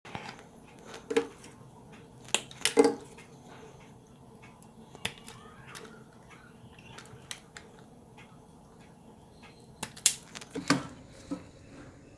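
Scattered sharp clicks and small knocks of hands working on electrical wires with tools, with the loudest clusters about a second in, around two to three seconds in, and near ten to eleven seconds in.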